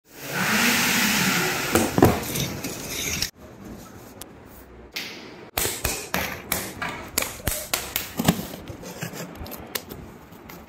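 Bicycle packaging being cut and handled: plastic wrap and cardboard rustling, with many sharp clicks and knocks. A loud noisy stretch in the first three seconds cuts off abruptly.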